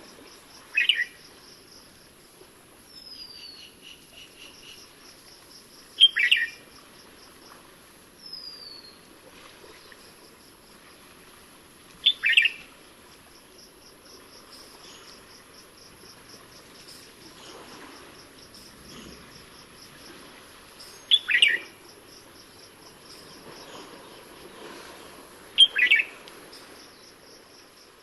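Red-whiskered bulbul calling: five short, loud calls spaced several seconds apart. Two softer falling whistles come in between, over a steady background of insects trilling.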